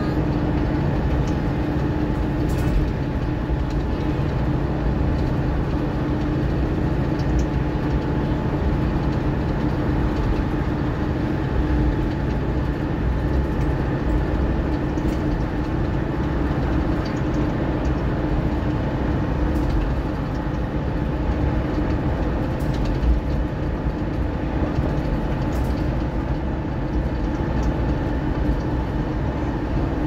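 On-board sound of a Mercedes-Benz Citaro O530 single-deck bus cruising at speed: diesel engine and road noise running steadily with a constant hum and no gear changes or stops.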